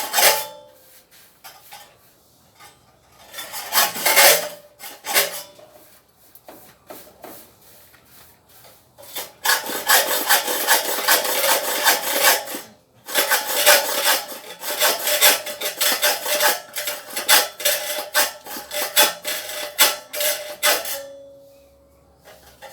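Rhythmic rasping strokes of a hand tool working wood: a short spell about three to five seconds in, then a long steady run of strokes from about ten seconds in until shortly before the end.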